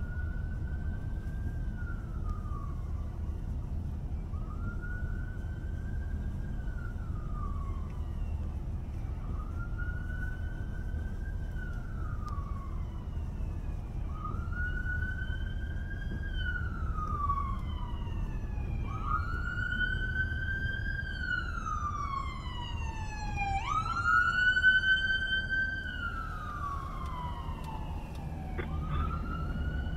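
Emergency vehicle siren in a slow wail: each cycle rises quickly, holds, then slides down, repeating about every five seconds and growing louder toward the end as the unit approaches.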